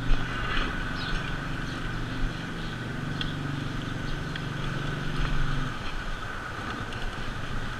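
Motorcycle-with-sidecar tricycle's small engine running steadily as it comes up and passes close by, the engine hum dropping away a little before the end, over steady road and wind noise.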